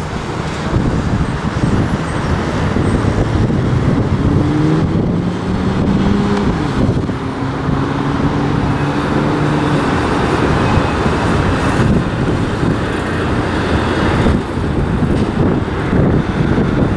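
Steady loud rumble of a jet airliner on its landing rollout, mixed with road traffic. A road vehicle's engine note rises about four seconds in and holds steady until about ten seconds.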